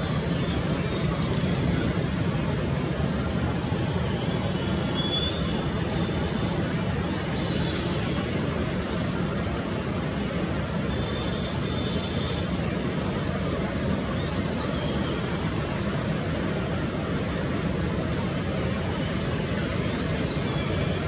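Boeing 747-8F freighter's engines running at low taxi power just before the takeoff roll: a steady rumble with faint high whines that come and go.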